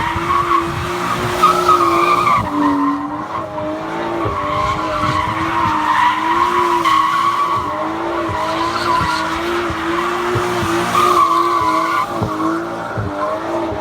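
Straight-piped Porsche 911 GT3 RS naturally aspirated flat-six held high in the revs, its pitch wavering slightly up and down and dipping briefly about two and a half seconds in, with tyres squealing as the car spins on the spot.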